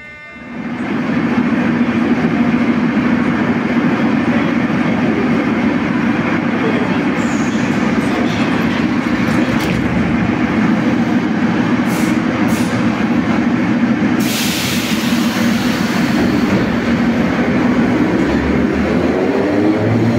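Moscow Metro train at a platform, its equipment running with a steady loud hum. A burst of hiss comes about two-thirds of the way through. Near the end a rising whine starts as the train pulls away.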